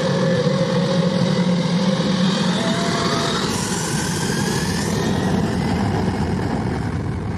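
Jet airliner engines running on the ground, a steady loud rumble with faint whining tones that glide upward. A brief hiss joins it from about three and a half to five seconds in.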